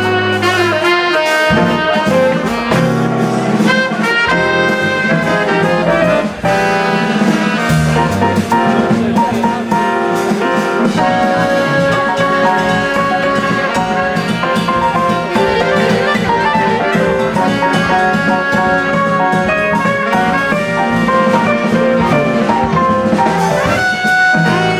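Live jazz band: trumpet and saxophone playing melodic lines together over low bass notes and drums.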